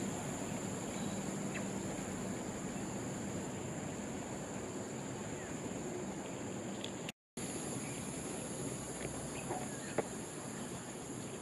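Outdoor ambience of insects droning steadily on one high pitch, with a few faint bird chirps and a single click about ten seconds in. The sound drops out briefly about seven seconds in.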